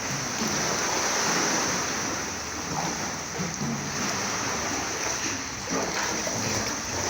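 Sea water splashing and washing, under a steady high-pitched hiss.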